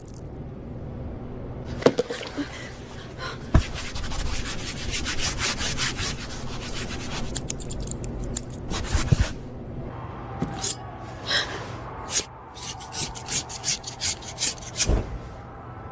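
Repeated rubbing and scraping strokes, some in quick runs, with a few sharp knocks.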